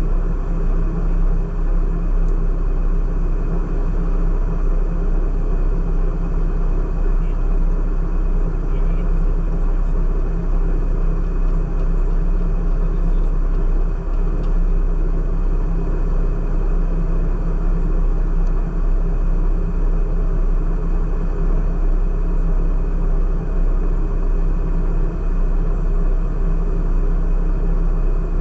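A vehicle engine idling steadily: a constant low hum that holds even, with no revving.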